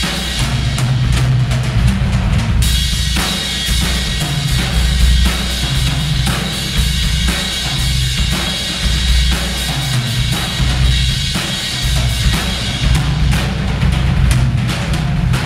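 Acoustic drum kit played continuously in a groove: bass drum, snare and ringing cymbals. The room is half-finished and echoes too much.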